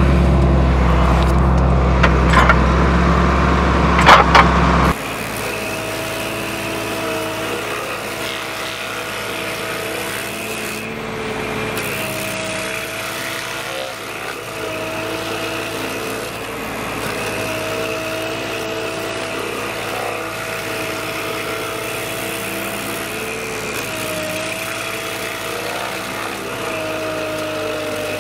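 A louder, deeper machine noise with a few sharp cracks, the loudest about four seconds in, cuts off suddenly at about five seconds. It gives way to an Irus Deltrak v3 tracked carrier's engine running steadily, driving its stump grinder. The engine's pitch dips briefly several times as the cutter wheel bites into the stump.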